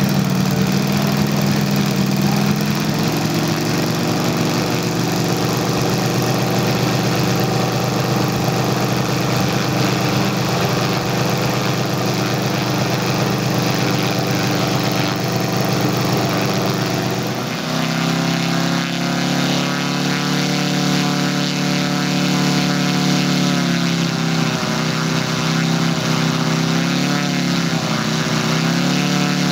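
Moki 250cc five-cylinder radial four-stroke petrol engine of a quarter-scale P-47 model running on the ground at a steady speed. In the last third the throttle is worked up and down a few times, so the engine's pitch rises and falls.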